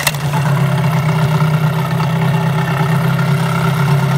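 Johnson Sailmaster 8 hp two-stroke outboard motor catching on a pull start right at the beginning, then running steadily at its starting throttle setting.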